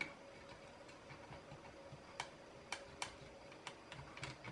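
Faint, irregular clicks and ticks of a small metal tool against the plastic housing and wiring inside an automatic soap dispenser as its electrical connections are worked loose, about half a dozen clicks over a few seconds.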